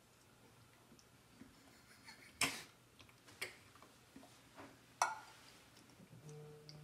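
A drinking glass and bottles knocking against a hard tabletop as they are set down and handled: three sharp clicks over about three seconds, the first the loudest, with a few fainter taps between them.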